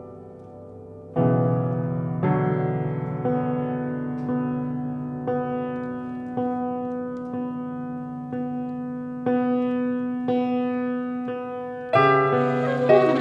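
Piano playing a slow, bell-like figure: a repeated middle note struck about once a second over ringing low chords, each note decaying before the next. A louder, fuller chord comes in near the end.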